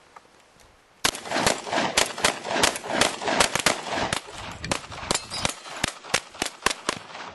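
A rapid, uneven string of gunshots, starting about a second in and going on for about six seconds.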